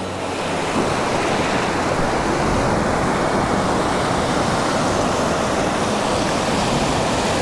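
Ocean surf breaking and washing in, a steady rush of waves that holds even throughout.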